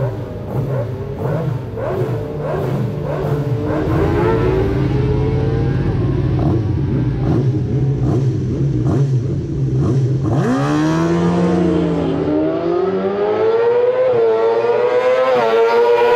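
Racing sidecar outfit's engine idling with small blips of the throttle on the start line. About ten seconds in it changes to hard revving that climbs steadily in pitch as the outfit accelerates at racing speed.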